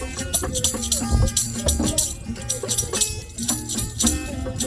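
Live acoustic music in an oriental style: a hand drum and jingling tambourine-like percussion keep a steady rhythm under short melodic notes.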